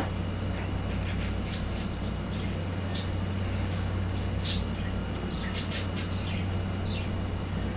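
Birds chirping and calling in short scattered notes over a steady low hum.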